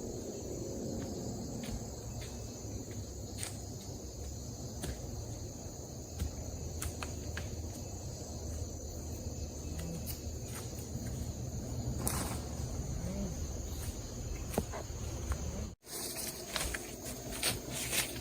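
Steady high-pitched drone of insects, with a low rumble underneath and scattered light clicks and rustles.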